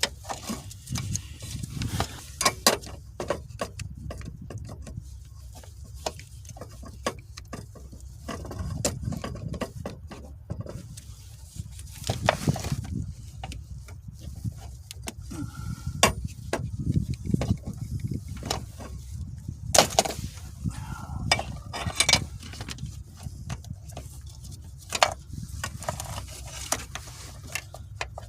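Irregular clicks, knocks and rattles of a car's manual shifter assembly, its plastic and metal parts being handled and taken apart, over a low steady rumble.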